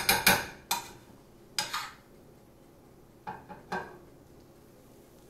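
A cooking utensil scraping and knocking against a frying pan as scrambled eggs are stirred and gathered: a quick run of strokes at the start, another a little later, a couple more past the middle, then it goes quiet.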